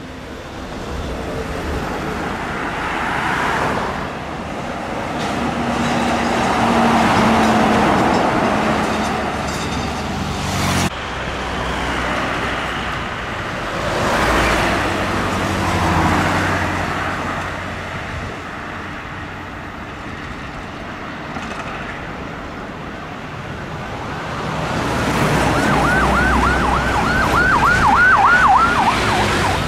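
Heavy trucks and other road traffic passing, the engine and tyre noise swelling and fading as each vehicle goes by. Near the end comes a rapid series of falling, siren-like whoops, about four a second for some three seconds, and these are the loudest sound.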